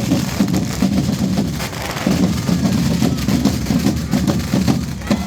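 Loud din of a street crowd with many voices, broken by frequent short sharp cracks such as bangers or firecrackers.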